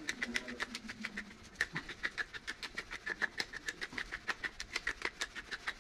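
Hand-twisted pepper mill grinding black peppercorns: a steady run of quick clicks, several a second.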